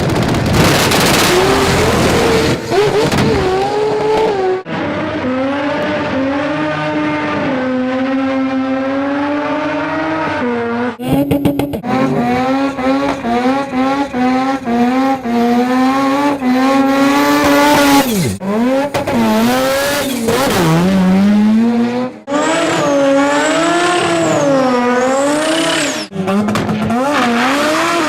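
Mazda rotary (Wankel) engines revving hard in a string of short clips, the engine note climbing steadily under acceleration, dropping and swinging up and down with the throttle, with abrupt cuts from one car to the next.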